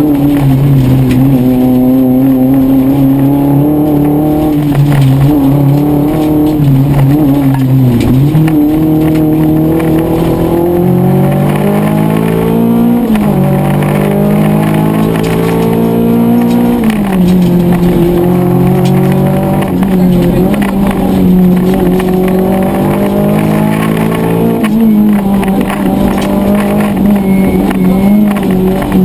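Rally car engine at full effort, heard from inside the cabin. Its pitch climbs under acceleration and falls back sharply several times, about 8, 13 and 17 seconds in, and again near the end.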